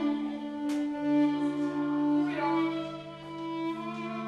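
Background music: a slow violin melody of long held notes over a lower sustained note that enters about a second in.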